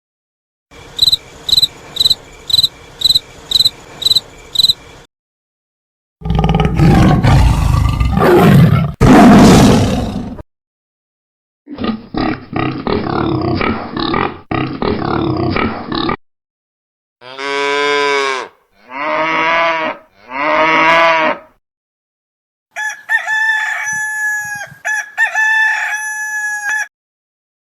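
A string of recorded animal sounds, one after another: a cricket chirping in a steady rhythm about twice a second, a tiger's loud roaring growl, a pig grunting, three calls from a cow mooing, then a rooster crowing.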